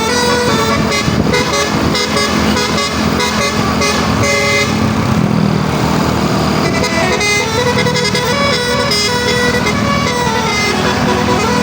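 Indonesian bus telolet horn, a set of multi-tone air horns, sounding a run of changing notes like a tune over the bus's engine running.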